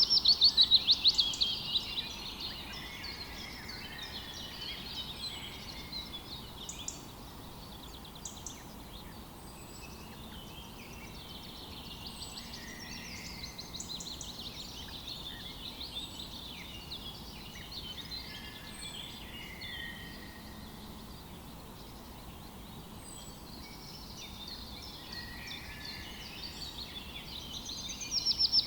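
Several songbirds singing and chirping over one another. A loud, rapid trill falling in pitch opens the stretch and comes again at the end.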